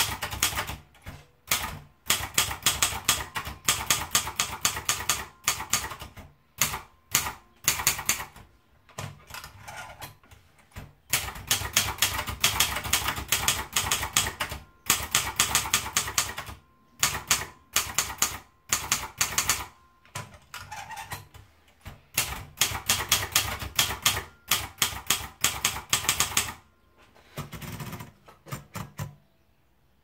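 Typing on a Sperry Remington manual portable typewriter: rapid runs of sharp key strikes in bursts of a second or more, broken by short pauses. Softer, lower sounds come near the end, and then the typing stops.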